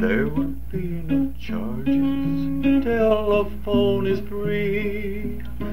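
Acoustic guitar played and strummed in a break between sung verses, on a 1959 home tape recording with a steady low hum underneath.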